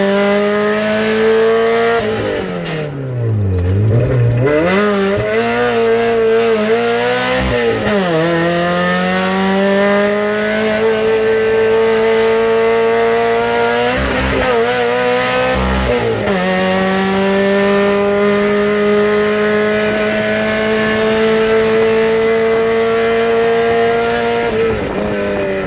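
Car engine under hard acceleration, heard from inside the cabin, its pitch climbing in long steady pulls. The pitch drops sharply about three seconds in, again near eight seconds and around fifteen seconds, as the car slows and shifts down for corners. It then pulls long and steady until it falls away near the end.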